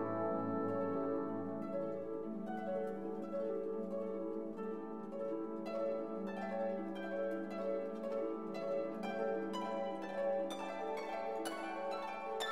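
Background music: plucked notes over a held low note, the plucked notes coming thicker toward the end.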